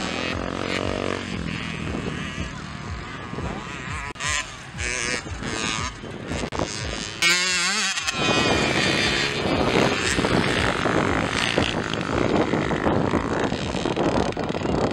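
Two-stroke mini motocross bikes' engines revving on the track, their pitch rising and falling repeatedly as the riders work the throttle, with abrupt changes where one bike's sound gives way to another's.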